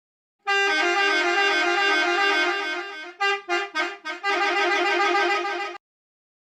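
School bus horn sound effect, edited into a wavering variation: a long honk that fades, three quick toots, then another long honk that cuts off suddenly.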